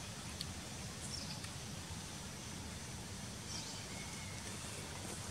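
Outdoor ambience: a steady low rumble and hiss, with a few faint, short high bird chirps.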